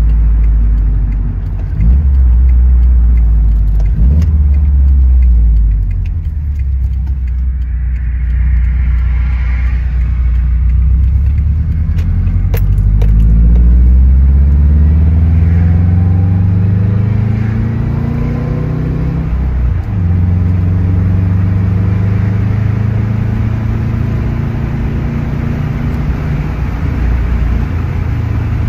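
Subaru WRX turbocharged flat-four engine and road noise heard inside the moving car. The engine's pitch climbs over several seconds as it accelerates, drops sharply about two-thirds of the way through at a gear change, then holds steady.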